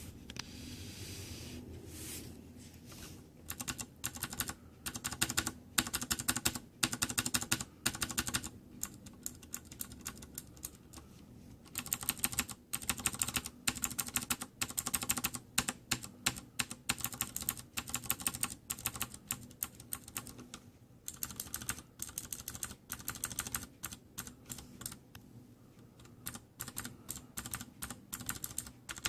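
Ducky Zero Zone mechanical keyboard with clicky Cherry MX Blue switches: keys pressed in quick runs of clicks, with a few short pauses.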